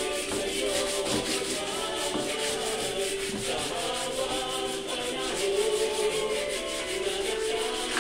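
Sandpaper rubbed by hand over dried putty in quick, even back-and-forth strokes, about five a second.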